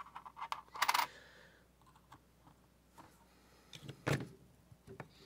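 Scattered light clicks and taps of small parts being handled: a metal washer picked up off a hard surface and a short length of half-inch PVC pipe knocking against a PVC mold as it is forced down into wet cement. There is a cluster of clicks about a second in and a sharper knock a little after four seconds.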